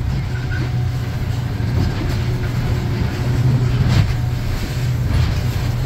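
Fishing boat's engine running steadily under way, a continuous low drone mixed with the rush of water along the hull, with a couple of short knocks about two and four seconds in.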